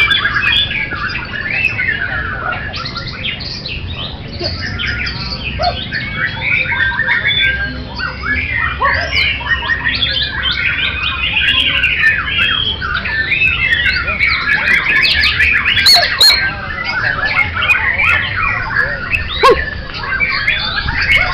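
Many caged songbirds singing at once: a loud, unbroken chorus of overlapping whistles, trills and chirps.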